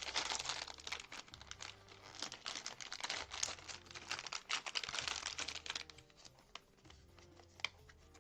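Packaging crinkling and tearing as a small packet is opened by hand, busiest for the first six seconds, then dying down to a few light clicks.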